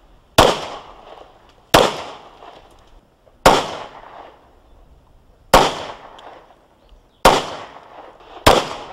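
Gun fired six times at a target in slow, evenly paced single shots, each crack followed by a short echo.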